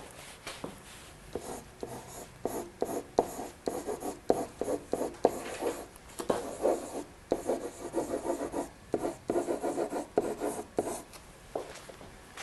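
Pen writing by hand on a whiteboard: a run of short, irregular rubbing strokes as words are written out, with brief pauses between them.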